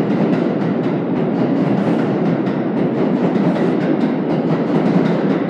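R142 subway train departing an underground station, its cars rolling close past with a loud, steady rumble and repeated clacking of wheels over rail joints.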